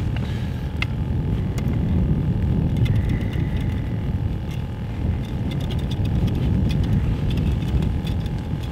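Steady wind rumble buffeting the microphone, with a few faint clicks from the tip-up's spool being turned by hand.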